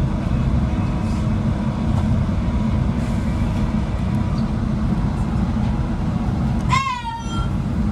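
Interior running noise of a Class 165 diesel multiple unit on the move: a steady low rumble from the underfloor diesel engine and wheels on rail. A short high-pitched squeal cuts through about seven seconds in.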